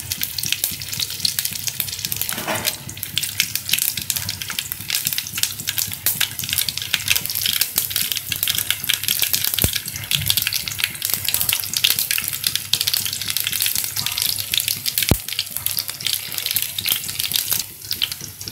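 Mustard seeds and chopped shallots sizzling and crackling in hot oil in a steel kadai, with many fine pops and two sharper clicks. This is the tempering stage, with the mustard seeds popping.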